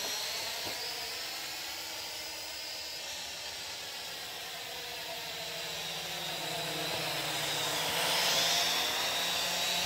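Venom Pro GPS quadcopter drone's propellers whirring steadily as it hovers in flight, a little louder with a shift in pitch about eight seconds in.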